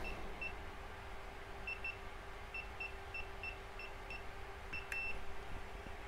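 Isurpass Z-Wave keypad beeping once per key press as a PIN code is typed: short high beeps at uneven spacing, then a slightly longer beep with a click near the end. A faint steady hum runs underneath.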